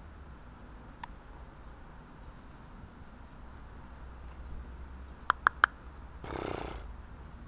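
Three quick, sharp clicks, then a pony's short breathy snort lasting under a second.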